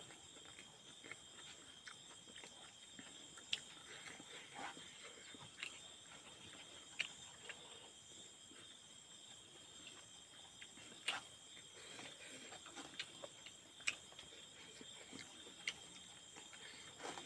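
Quiet eating sounds: chewing and lip smacks as rice is eaten by hand, with fingers working rice on a steel plate. Sharp little clicks come every second or two.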